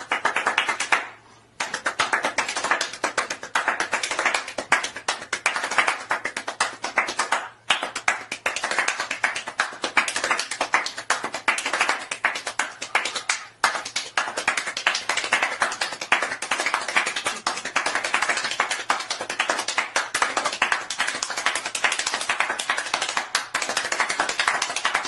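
One person's hands clapping very fast in a dense, continuous run of claps. Short breaks come about a second, seven and a half seconds and thirteen and a half seconds in. This is the warm-up pace of speed clapping.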